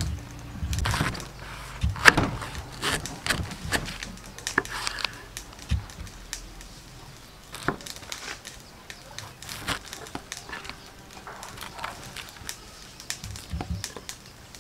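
Kitchen knife slicing through a peeled banana flower and knocking on a wooden chopping board: irregular crisp cuts and taps, the sharpest about two seconds in.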